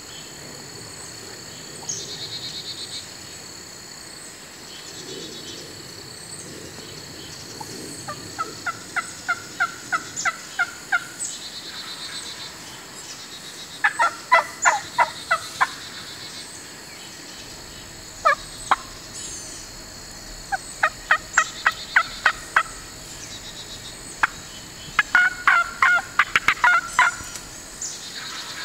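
Wild turkeys calling: five runs of quick, sharp, repeated notes, about four a second, each run lasting two to three seconds, with pauses of a few seconds between runs.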